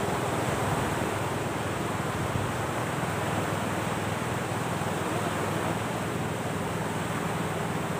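Steady rush of wind and waves at the shore, an even noise with no single event standing out.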